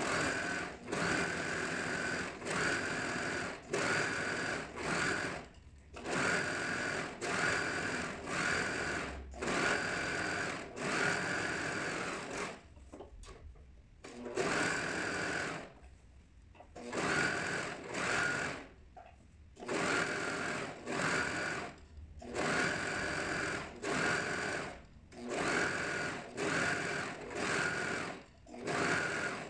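Overlock machine (serger) stitching along the cut hem of a dress, running in short runs of about a second with brief stops between them and a few longer pauses near the middle. Each run is a steady mechanical whine.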